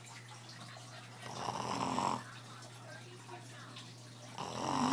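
A sleeping man snoring: two loud snores, each about a second long and about three seconds apart, the second starting near the end, over a steady low hum.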